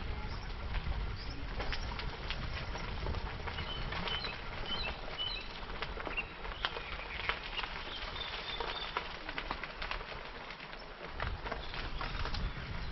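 Bicycle tyres crackling over light gravel, with birds chirping in the background.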